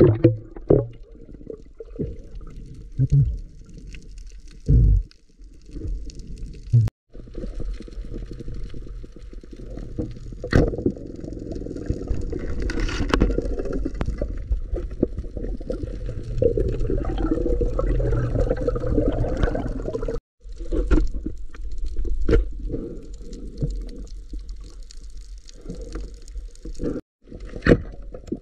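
Muffled water sloshing and bubbling around a diver underwater, with scattered knocks. The sound cuts out abruptly three times.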